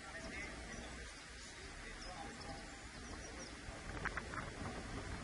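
Outdoor background noise with faint, scattered small bird chirps, and a few short clicks near the end.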